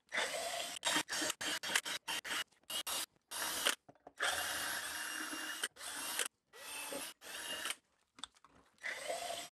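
Ridgid cordless drill spinning a twist bit into pine board, drilling pilot holes in a rapid string of short bursts, with one longer run of about a second and a half near the middle.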